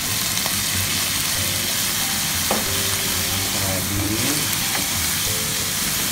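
Long green chilies, garlic, onion and ginger sizzling steadily in hot oil in a nonstick pan, stirred with a wooden spatula.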